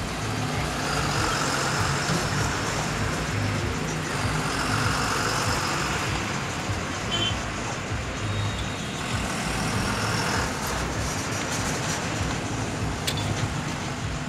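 Army trucks in a convoy driving by on a rough road: a steady rumble of truck engines and tyres.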